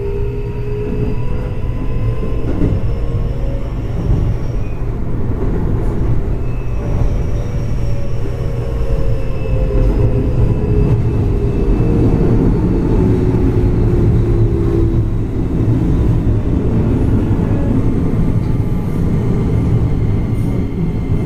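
Keio 8000 series train heard from inside the passenger car: the Hitachi IGBT-VVVF inverter traction motors whine over a steady wheel-on-rail rumble. The whine rises slowly in pitch for the first few seconds and breaks off. Then a new whine falls slowly in pitch, as the train brakes for the next station.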